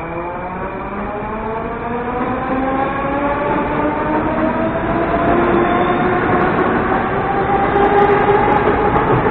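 81-740.4 'Rusich' metro train pulling away and gathering speed: its traction motors give a whine of several tones that climb steadily in pitch, over the rush of the passing cars, growing louder.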